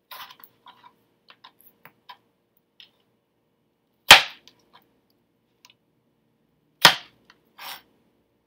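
Chef's knife cutting cantaloupe on a cutting board: light knife taps and clicks, then two loud, sharp chops striking the board about three seconds apart, with a brief scrape near the end.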